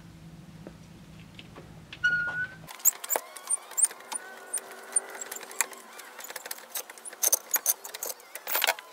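Hydraulic floor jack being pumped by its long steel handle: irregular metallic clinks and rattles as the handle works in its socket, with short squeaks among them. A single squeak comes about two seconds in, before the clinking starts.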